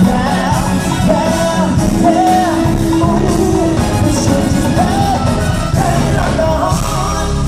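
Live band playing an up-tempo song with a singing voice over it.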